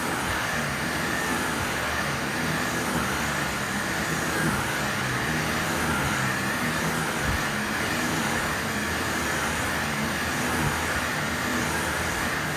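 Vacuum cleaner running steadily: a constant rushing motor noise with a slight whine that holds at one level.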